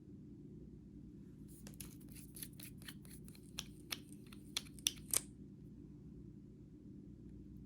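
A quick run of sharp, irregular clicks and crackles lasting a few seconds, the last few the loudest, over a steady low hum.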